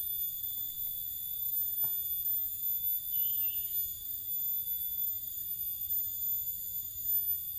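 Steady, high-pitched chorus of insects, several shrill tones running on without a break, with a faint short chirp about three seconds in.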